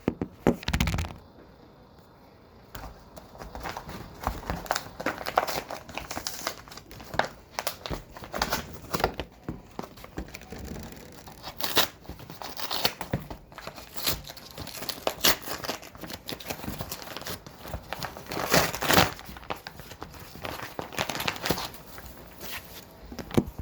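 Packaging being torn open and unwrapped by hand: irregular crinkling and rustling of wrapping, with tearing, for the whole stretch.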